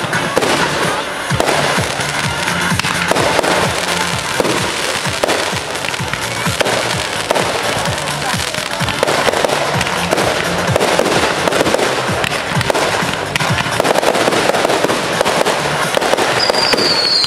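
Ground fireworks fountains spraying sparks: a dense, continuous crackling of many small pops, with background music. Near the end a short whistle falls in pitch.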